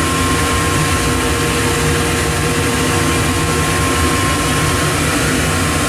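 Steady hum of a powered-up CNC gun drilling machine's motors and fans: a low rumble with a constant high whine over it.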